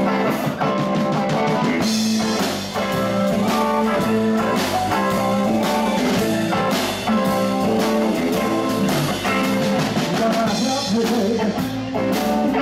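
Live band playing loudly on electric guitar, bass guitar, drum kit and keyboard, with a steady drum beat under held keyboard and guitar notes.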